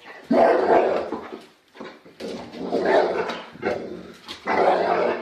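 A dog making three long, rough grumbling vocalisations of about a second each, the protective 'talking' of a dog objecting as someone reaches to touch the baby it is guarding.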